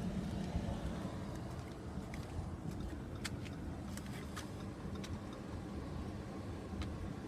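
Car running with a steady low rumble, with scattered light clicks.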